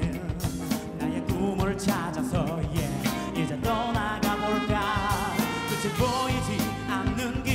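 A live band playing a song with a steady drum beat: a man sings lead into a microphone over drums, electric guitar and keyboards.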